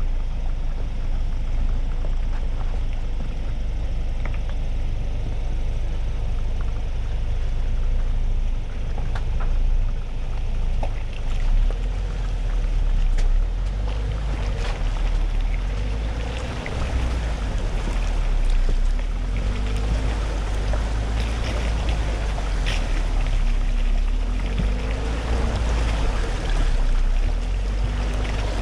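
2020 Ford Ranger 4x4 driving off-road: a steady low rumble of engine and tyres, with scattered knocks and clicks from the rough ground.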